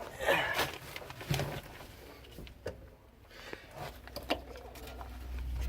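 Handling noise: scattered rustles and light clicks of wires and plastic parts being moved, with a low rumble building near the end.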